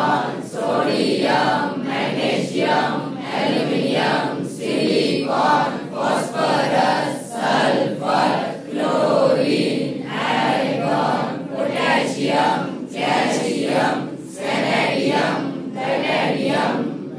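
A large class of students chanting a recitation in unison, a loud sing-song group chant broken into short phrases with brief pauses about every second.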